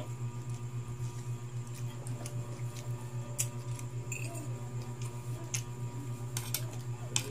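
Someone eating noodles from a plate: a few sharp clicks of a spoon and fork against the plate and faint chewing, over a steady low hum.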